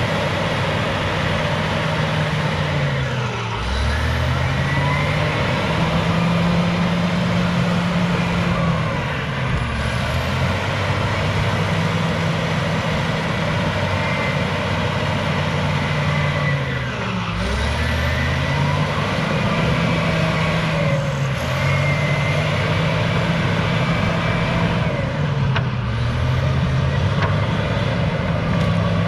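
Cat D6H bulldozer's diesel engine working hard, its pitch sagging and recovering again and again, dropping deepest twice under load, with a higher whine rising and falling over it.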